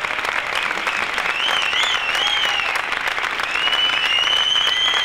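Theatre audience applauding steadily, with high whistles over the clapping: a short wavering one about a second and a half in and a long held one near the end.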